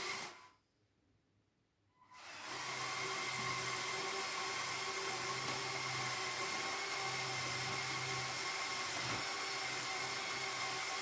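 Lego Technic electric motors and their gear trains whirring steadily as the rope shovel swings and works its bucket, with a steady high whine over a lower hum that comes and goes. The whir starts about two seconds in, after a short burst of it that cuts off right at the start.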